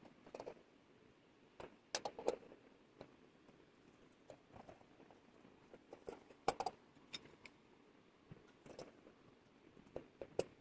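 A steel hand tool scraping and clinking against the inside of a brass bowl, in short clusters of clicks a second or two apart.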